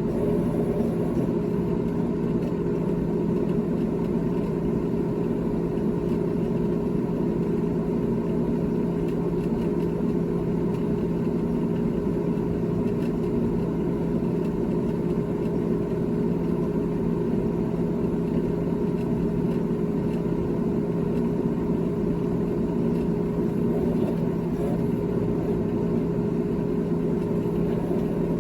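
GE GTH18XCTZRBB refrigerator running with a steady, unchanging hum: two constant tones over a low rumble.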